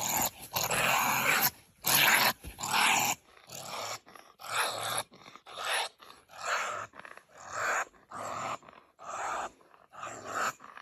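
Honey badger growling in a run of harsh, noisy calls: long and loud over the first three seconds, then shorter calls at about one a second.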